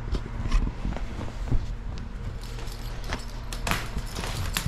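Collapsible crinkle-lined cat tunnels rustling and knocking as a kitten plays in and around them: scattered short rustles and light knocks, the sharpest about half a second and one and a half seconds in, over a steady low hum.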